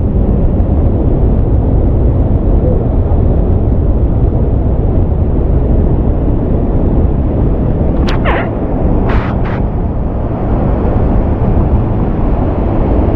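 Waterfall pouring close by: a loud, steady rush, heaviest in the low end, with a few brief higher sounds about eight and nine seconds in.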